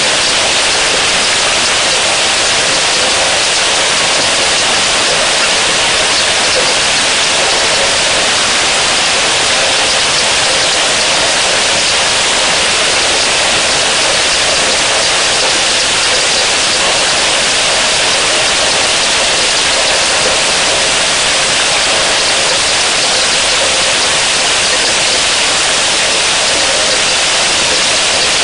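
Heavy rain falling on a pond's surface: a steady, even hiss with no breaks.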